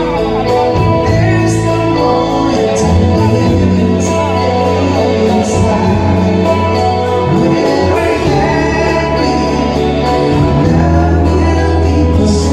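Live band music with singing: a steady bass line changing notes every second or two, guitar, and drums with occasional cymbal hits.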